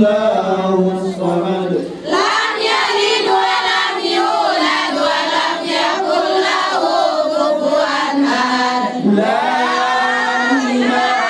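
A group of women singing together in unison, a chant-like melody with short breaks between phrases about two seconds in and again near nine seconds.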